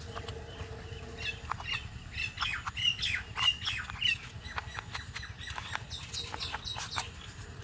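Birds chirping and squawking, busiest in the first half, over quick knife taps on a plastic cutting board as tomatoes are diced.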